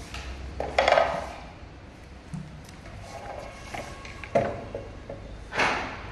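A few separate metallic clinks and knocks, the loudest about a second in and two more near the end, as tools and metal parts are handled while an electric scooter's wheels are worked on.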